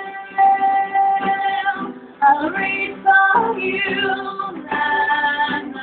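A voice singing a song over a strummed acoustic guitar. The singer holds long notes at first, slides and wavers through a phrase in the middle, then holds a note again near the end.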